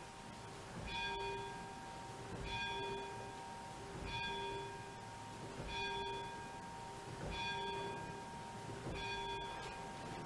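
A single church bell rung by hand from a rope, struck about every second and a half, six strokes in all, each ringing on into the next.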